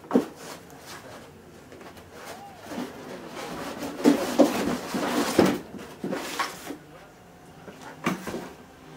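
Knocks and rustling of quadcopter parts and packaging being handled on a table, with a cluster of louder knocks about four to five and a half seconds in.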